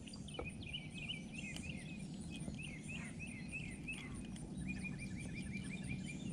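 Birds chirping: a string of short, high chirps, then a quick run of chirps about two-thirds of the way in, over a low steady background rumble.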